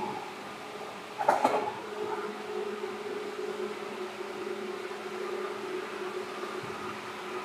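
Seibu 2000 series electric train running, heard from inside the car: a steady drone with a constant hum tone under the running noise. A short, loud burst of clattering knocks comes about a second in.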